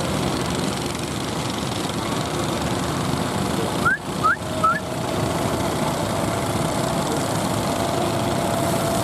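Fishing-boat engine running steadily under the wash of heavy surf. About four seconds in come three short rising squeaks, then a steady tone held through the end.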